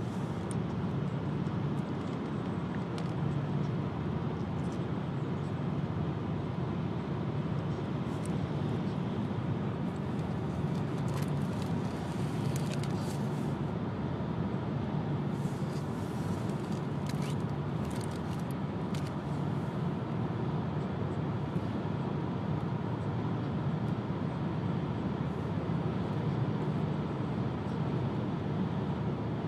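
Steady road and engine noise inside a moving car's cabin, with a few faint clicks in the middle.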